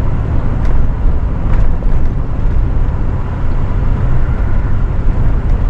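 Off-road vehicle driving on a sandy dirt trail: a steady, loud low rumble of engine and tyres, with a couple of faint knocks early on.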